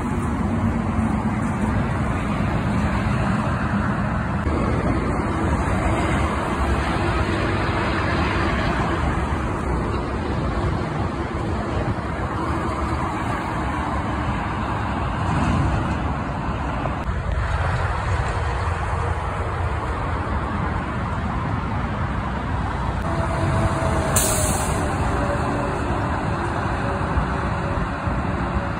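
Steady highway traffic: cars and heavy trucks passing at speed, a continuous rush of tyre and engine noise, with the hum of a truck engine coming through near the start and again near the end.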